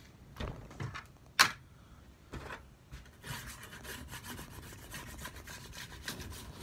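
A few knocks and clicks of tools being handled, the sharpest about a second and a half in. From about three seconds in comes a run of quick, repeated scraping strokes: a hand rasp worked over a rough spot on the sled runner's plastic and rail.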